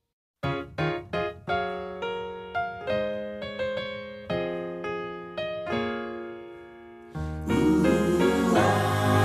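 A Taipei Metro chime melody in clean piano-like tones: a run of single notes, each struck and fading, starting about half a second in. About seven seconds in, a louder, fuller sound with a hiss under it takes over.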